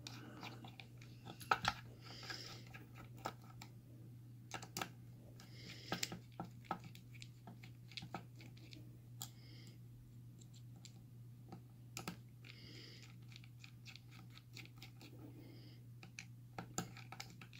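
Scattered small clicks, taps and brief scraping as a padlock and small tools are handled while it is being taken apart, over a steady low hum.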